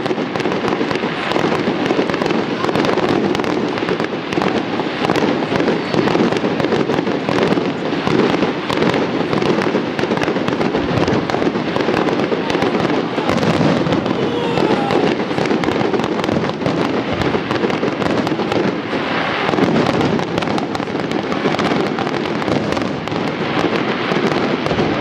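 Fireworks display: a dense, unbroken barrage of overlapping bangs and crackling.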